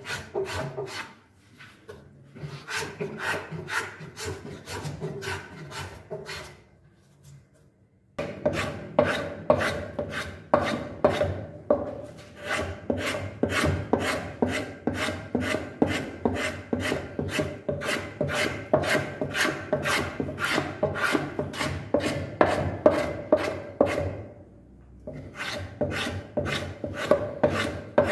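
Hand sanding the face of a willow cricket bat, rubbing back the white filler, in quick back-and-forth strokes about two to three a second. The strokes break off briefly about a second in, again around seven seconds in, and shortly before the end.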